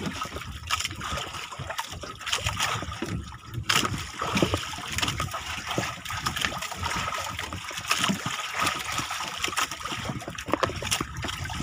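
Sea water splashing and lapping against the hull of a small outrigger fishing boat, with irregular slaps of water throughout.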